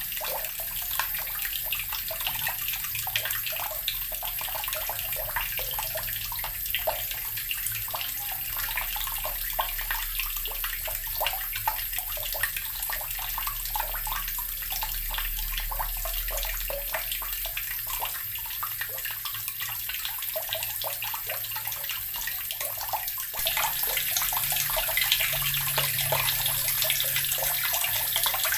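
Water running steadily from a tap and splashing into a basin or tub, a continuous patter of small splashes that steps up a little in level late on.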